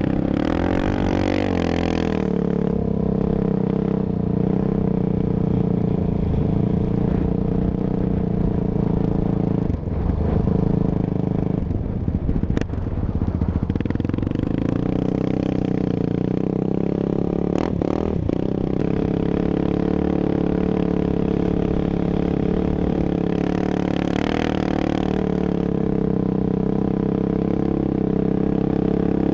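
Sport quad's engine running steadily under the rider while riding on sand, its note dipping and wavering for a few seconds partway through as the throttle changes.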